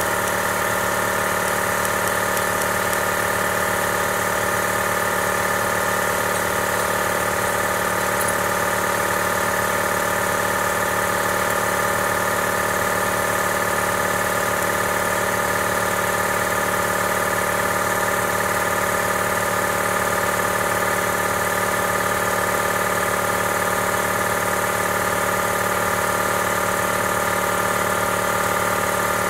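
A machine running steadily: an even mechanical drone with several fixed, high whining tones and no change in speed or level.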